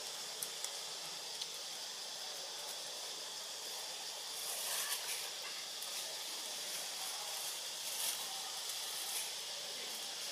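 Steady high hiss of outdoor tree-canopy ambience, with a few faint ticks and brief rustles around the middle and about two-thirds of the way through.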